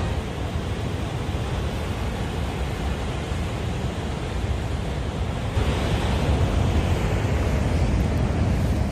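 Steady rushing of water pouring over Niagara Falls, a little louder from about five and a half seconds in.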